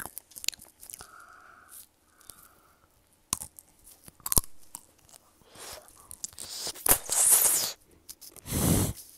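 The hard sugar shell of a candied orange tanghulu cracking and crunching as it is bitten and chewed close to the microphone: scattered sharp cracks, with two louder noisy bursts in the last two seconds.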